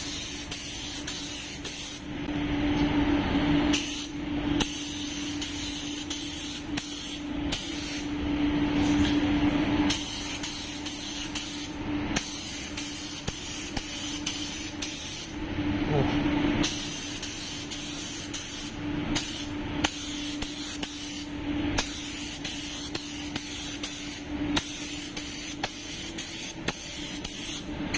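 Compressed-air paint spray gun hissing as it sprays base coat at about 1.5 bar in repeated passes, the trigger let off for short moments between them and the hiss swelling louder a few times. A steady low hum runs underneath.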